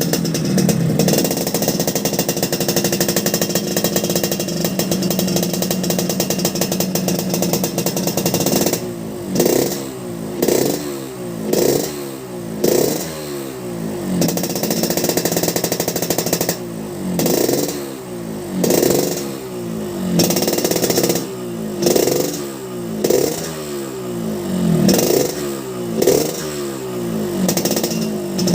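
Yamaha RX-King two-stroke single-cylinder motorcycle exhaust with a crisp, growling note. The engine is held at high revs for about eight seconds, then blipped repeatedly, about once a second, each rev falling back down.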